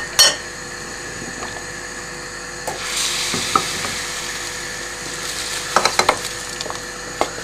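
Hot melted butter with red pepper flakes poured into a pot of simmering soup, sizzling with a hiss that swells about three seconds in and fades. Near the end a wooden spoon knocks and scrapes against the small pan a few times as it is emptied.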